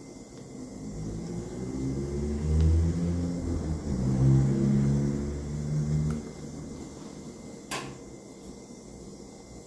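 A motor vehicle's engine going by, growing louder over a few seconds, shifting in pitch, and dying away about six seconds in. A single sharp click comes near the end.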